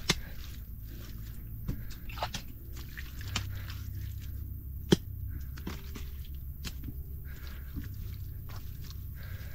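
Wet mud being pressed and patted by hand onto a mud cookstove: scattered soft squishes and slaps, with two sharper slaps, one right at the start and one about five seconds in.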